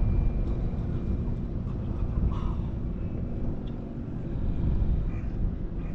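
Strong wind rumbling on the microphone, a steady low buffeting, with a few faint brief sounds about two and a half seconds in.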